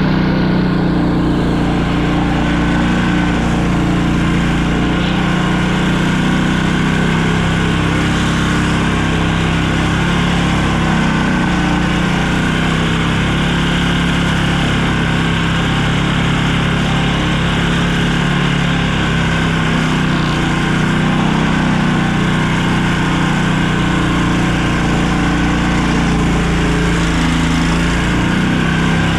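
Vehicle engine running steadily at constant speed, an even drone with no revving or gear changes.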